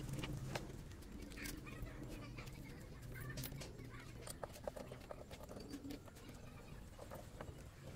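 Faint scattered clicks and taps of small hand tools and wires being handled, over a low hum.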